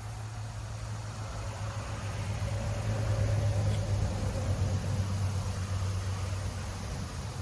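A steady, low mechanical hum that grows louder about halfway through and then eases off.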